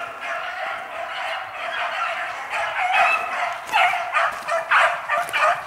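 A pack of hunting hounds baying on a hare's trail, many voices overlapping and growing louder as the pack closes in.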